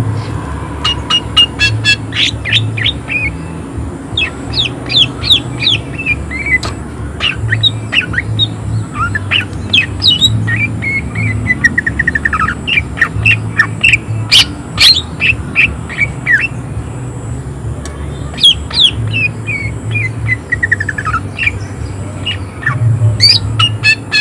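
Cucak ijo (green leafbird) singing hard: a fast, unbroken run of sharp chirps and downward-sweeping whistled notes, with short falling trills, over a low steady hum.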